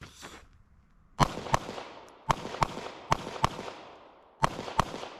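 Pistol shots fired as quick double taps: four pairs of shots, eight in all, each bang followed by an echo.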